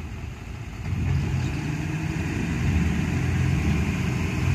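Car engine running, getting louder about a second in and then holding steady.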